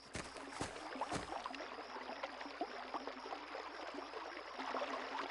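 Gentle water ambience of small waves lapping and trickling. A few footsteps land in the first second or so.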